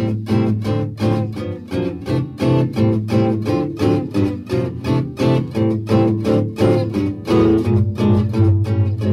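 Music: an acoustic guitar picking a quick, even run of plucked notes over a steady low bass.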